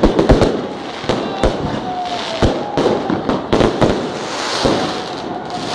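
New Year's fireworks and firecrackers going off all around: a dozen or so sharp bangs at irregular intervals.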